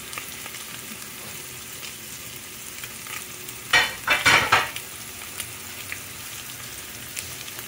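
Breaded red snapper fillets shallow-frying in hot oil in a stainless steel skillet: a steady sizzle with light crackling, and a brief louder burst about four seconds in.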